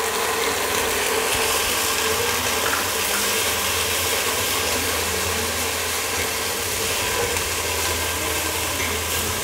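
Garlic-ginger paste and fried onions sizzling in hot oil in a nonstick pot while a plastic spatula stirs and scrapes through them. Under it runs a steady low hum.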